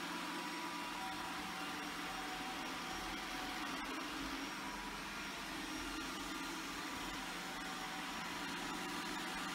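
iRobot Roomba 980 robot vacuum running steadily on a hard floor, a constant motor hum and whir.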